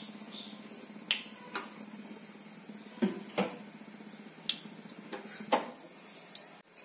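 A steel spoon clinking sharply against a nonstick pan about seven times at uneven intervals while oil is poured into the pan. Under it runs a steady high-pitched chirring, like crickets.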